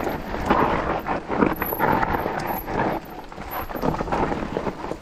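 Mountain bike rolling over a dry dirt trail: a steady rush of tyre and trail noise, broken by frequent short knocks and rattles from the bike.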